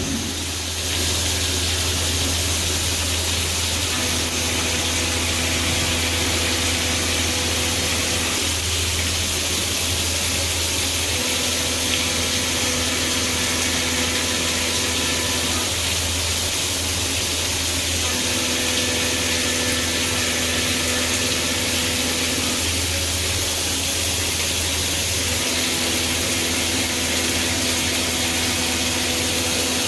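CNC mill cutting pockets in soft vise jaws: a steady hiss over the machine's hum, with a cutting tone that comes in for about four seconds at a time, four times, as the tool makes its passes.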